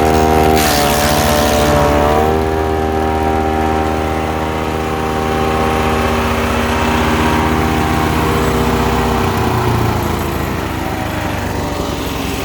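Ducar woodchipper's 420 cc gas engine running at speed. About half a second in, a burst of noise rises over it and the engine pitch dips for a second or so as it takes a load, then it recovers and runs steadily again.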